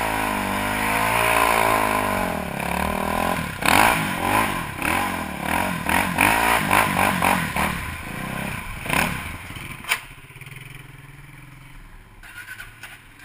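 ATV engine running and revving: a steady wavering engine note, then a run of quick throttle blips, easing to a quieter low idle about ten seconds in, with a sharp click just before.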